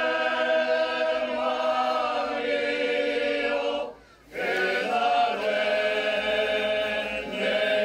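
Choral music: voices singing long held chords, breaking off briefly about four seconds in before the next chord.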